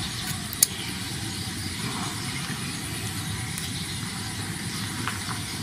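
Steady low rumble of background noise, with one sharp click about half a second in.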